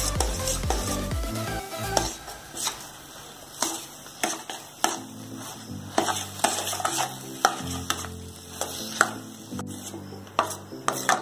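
Metal spoon stirring and scraping thick moong dal halwa in a stainless steel pan, with irregular sharp clinks against the pan over a light sizzle of ghee. Sugar is being stirred in a little at a time so that it does not form lumps.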